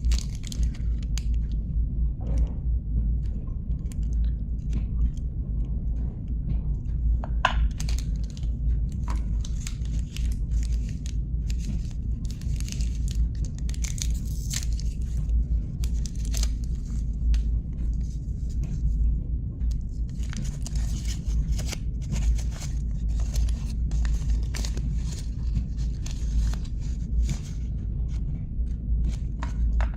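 Chocolate bar wrappers being torn open and crinkled, with many short irregular rustles and crackles, busiest in the middle and latter part, over a steady low hum.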